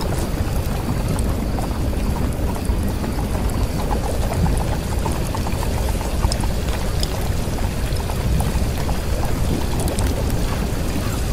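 Steady rain-like rushing noise, heaviest in the low end, with many scattered light ticks and crackles.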